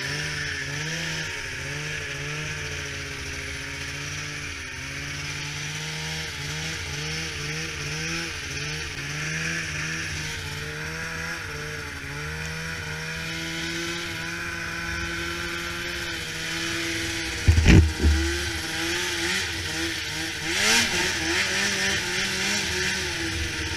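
Snowmobile engine running close by, its pitch wavering up and down with the throttle, with a sudden loud thump about three-quarters of the way through.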